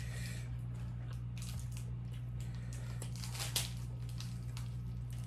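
Chewing and lip-smacking from eating sauced chicken wings by hand: scattered wet mouth noises, the loudest about three and a half seconds in, over a steady low hum.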